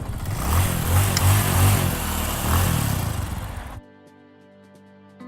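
A motor vehicle's engine rumbling in pulses over loud road and traffic noise, cut off suddenly about four seconds in by music of held, steady chord tones with faint regular ticks.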